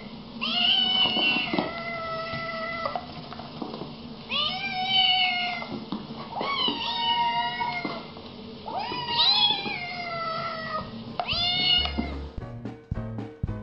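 Kittens meowing: five long meows, one after another. Swing music starts near the end.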